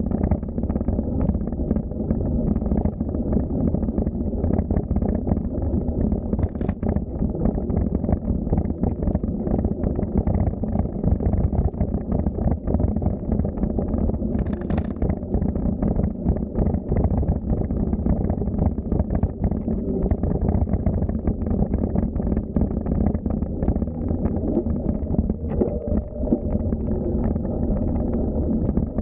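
Wind buffeting a microphone on a moving bicycle: a steady low rumble with fine, rapid flutter, broken by two brief higher clicks, about a quarter of the way in and again near halfway.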